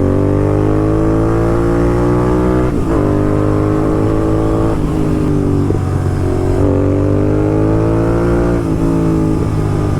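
Royal Enfield Continental GT 650's parallel-twin engine through a loud Red Rooster aftermarket exhaust, pulling up through the revs with rising pitch, broken several times by short dips where the revs step down. Near the end the throttle eases off and the exhaust crackles on the overrun.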